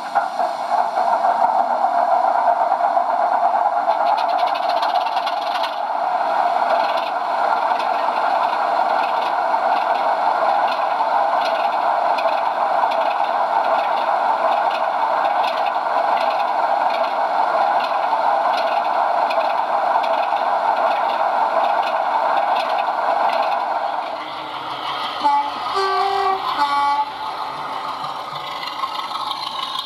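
Model diesel locomotive sound through a small onboard speaker: a steady diesel engine running note. Near the end the engine sound drops and a few short horn notes sound, followed by quieter engine running.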